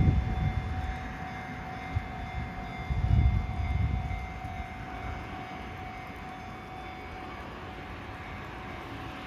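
A train running past at a level crossing: a low rumble that swells at the start and again about three seconds in, then settles into a steady hum, with a steady high tone over it that fades near the end.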